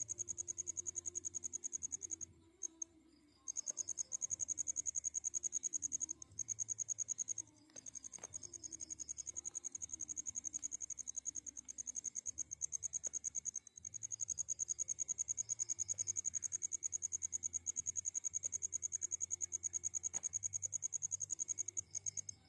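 A cricket trilling: a high, fast-pulsed trill that goes on steadily with a few short breaks.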